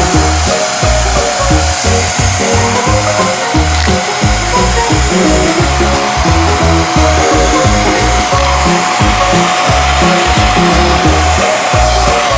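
Queenmade portable vacuum cleaner running, a steady motor whine over rushing air, with background music playing. The machine noise cuts off at the end.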